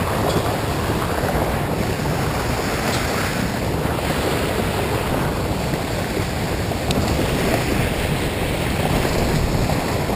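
Storm floodwater rushing and churning as whitewater through a canal outflow, a steady unbroken rush of water.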